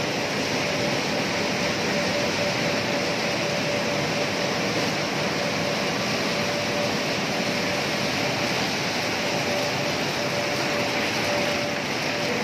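Cashew nut processing machinery running: a steady, even machine noise of conveyors and grading rollers carrying nuts, with a faint steady tone.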